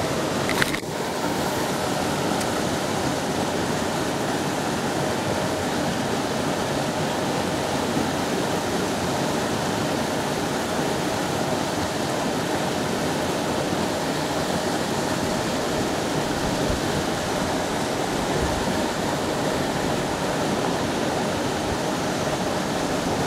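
Water pouring steadily from a culvert spillway pipe into a pond, an even rushing splash with a brief knock less than a second in.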